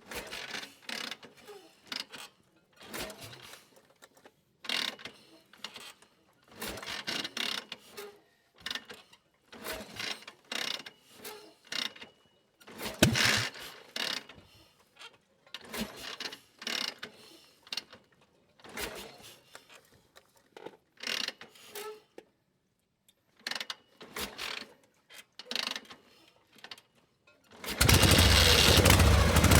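Metal gear shifter being worked through its gears: a series of short metallic clicks and clunks, one cluster every second or two with brief silences between. Near the end a loud, steady engine sound starts.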